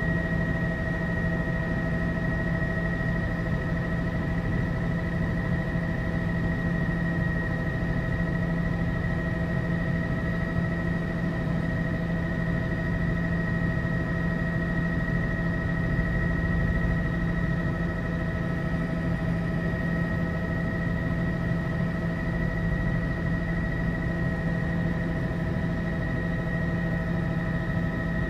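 Tour helicopter in steady cruise, heard from inside the cabin: a constant low drone with a steady high whine over it, unchanging throughout.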